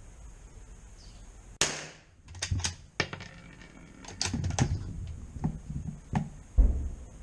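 Zastava CZ 99 .22 LR bolt-action rifle: one sharp crack with a short ring-out, then a run of metallic clicks and clacks as the bolt is worked, and a dull thump near the end.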